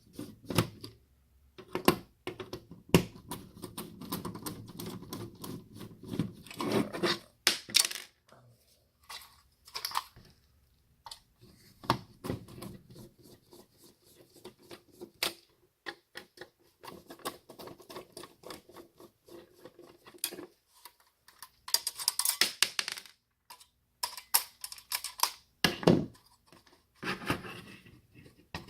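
An old floppy drive being pried and pulled apart by hand: irregular clicks, snaps and knocks of plastic and sheet-metal parts, with a few longer scraping stretches.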